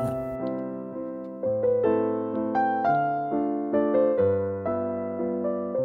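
Background piano music: single notes struck over held chords, each fading away after it sounds, at about two notes a second.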